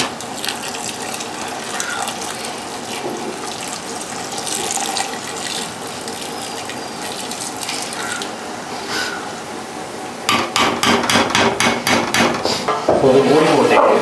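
Water poured from a vessel into a large aluminium pot of half-cooked biryani rice, a steady splashing trickle, topping up the cooking water because the level is low. After about ten seconds it gives way to a quick run of sharp clattering clicks.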